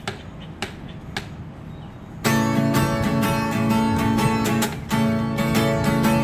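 Acoustic guitar intro to a song: over a quiet start come a few sharp ticks, then about two seconds in steady strumming starts, with a brief break just before five seconds.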